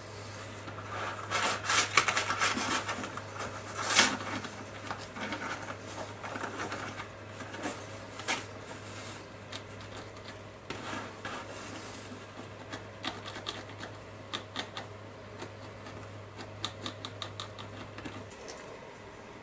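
A stiff paintbrush scrubbing and flicking across the plastic links of a 1/35 scale tank track while dry brushing: runs of quick scratchy strokes and small clicks, densest in the first few seconds. A low steady hum sits underneath and stops near the end.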